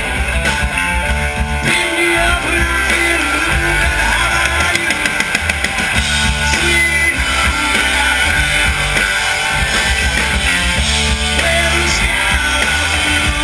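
A live rock band playing loud through a stage PA: electric guitar over a drum kit.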